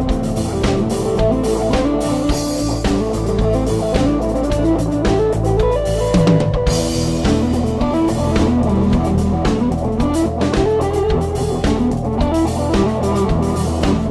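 Background music: guitar over a steady drum-kit beat.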